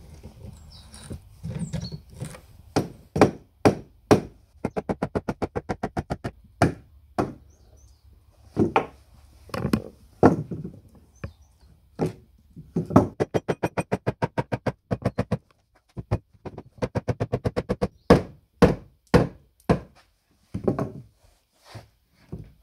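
Rubber mallet striking solid oak bench parts: single thuds and quick runs of even blows, about seven a second, as the old carpenter's bench is knocked apart.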